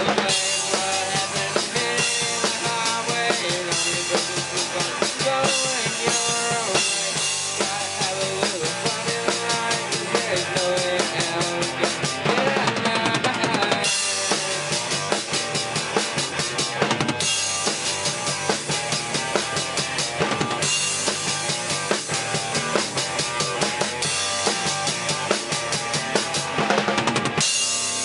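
A rock band rehearsing: a drum kit played hard, with bass drum, snare and crashing cymbals, over electric guitars.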